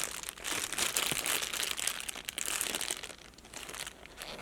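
Plastic wrapping crinkling and crackling as a squishy toy is handled, busiest in the first three seconds and dying down near the end.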